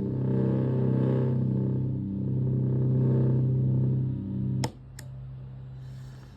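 Stratocaster played through a Tone Bender MK1.5-style fuzz pedal into a Fender Twin Reverb-style amp: a low fuzzed note sustains thick and buzzy. About four and a half seconds in it cuts off suddenly with two sharp clicks, leaving a quieter steady hum.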